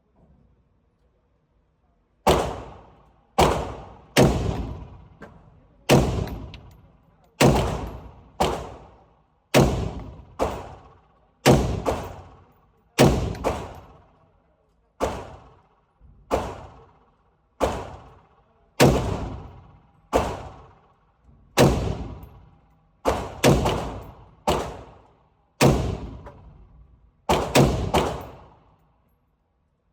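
AR-15 rifle fired semi-automatically: a steady string of single shots, about one a second, each with a ringing echo tail. The shots start about two seconds in and now and then come in quick pairs.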